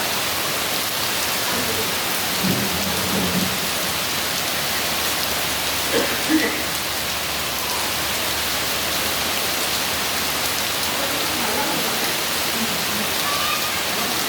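Heavy rain falling steadily in a dense, even hiss. A brief low rumble sounds about two and a half seconds in, and two short louder knocks come about six seconds in.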